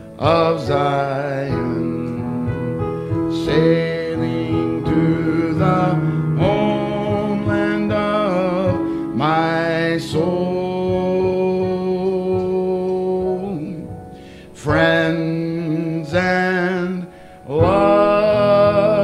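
A man singing a gospel song, holding long notes with vibrato, accompanied by piano.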